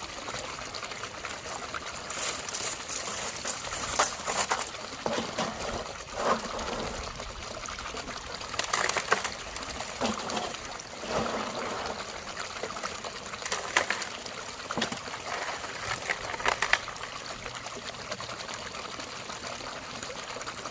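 Shallow creek water trickling steadily, with scattered sharp clicks and knocks every second or two that are louder than the water.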